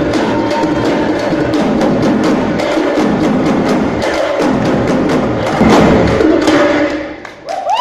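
A troupe of hand-held frame drums struck with sticks, playing a fast, dense rhythm together. Near the end the drumming drops away briefly as a high rising tone begins.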